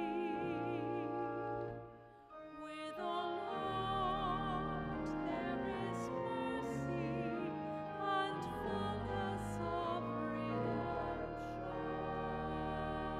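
A woman cantor singing the responsorial psalm solo, her voice with a wide vibrato, over sustained instrumental accompaniment. The singing breaks off briefly about two seconds in, between phrases.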